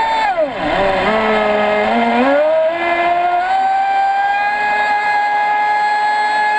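Traxxas Spartan RC speedboat's brushless electric motor whining at speed, heard from onboard. The pitch falls sharply within the first second, climbs back over the next couple of seconds, and holds steady at full speed.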